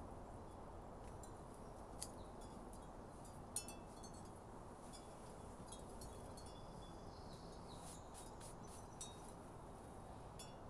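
Faint wind chimes tinkling, with scattered short high ringing notes and one longer held tone about two thirds of the way through, over steady outdoor background hiss.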